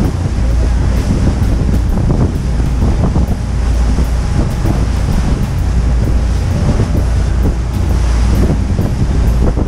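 Heavy wind buffeting the microphone on a moving tour boat, with the boat's engine and the water running steadily underneath.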